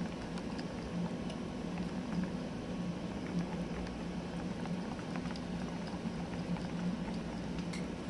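Wire whisk stirring thin puto batter in a bowl: a steady wet swishing with faint light clicks, over a steady low hum.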